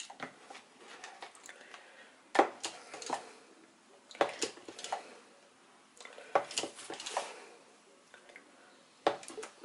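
Small wire whisk stirring thick pancake-mix batter in a plastic measuring cup, its wires clicking and scraping against the cup in about four short bursts with pauses between.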